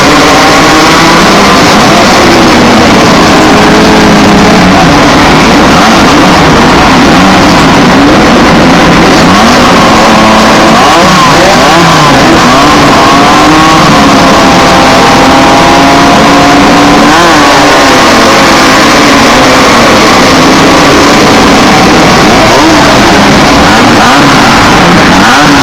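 Class 1600 off-road race cars, with air-cooled Volkswagen 1600 cc engines, revving and accelerating away from a race start. The engines are loud, and several overlap, their pitches rising and falling as they rev and shift.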